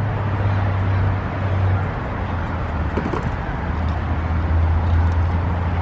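Steady drone of road traffic: a constant low rumble with a hiss over it.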